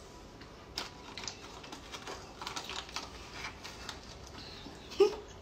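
Faint irregular clicks and crinkles of a baking-powder packet being handled, with a brief voice sound about five seconds in.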